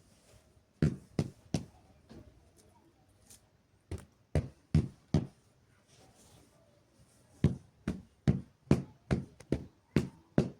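Blankets and pillows being beaten to shake out the dust: dull thumps in bursts, three near the start, four about four seconds in, then a quick run of about nine in the last three seconds.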